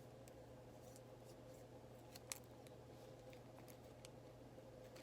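Near silence with a low steady hum, broken by faint scattered clicks of trading cards being handled, and one sharper click a little over two seconds in.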